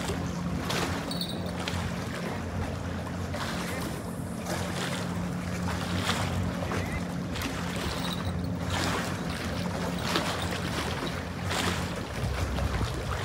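Wind and water noise at the waterside, swelling and easing every second or two, over a steady low hum that changes near the end.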